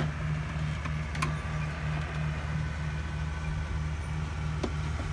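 Farm tractor engine running steadily as a low drone that throbs about three times a second. A few light clicks come from screwdrivers working at a printer's screws.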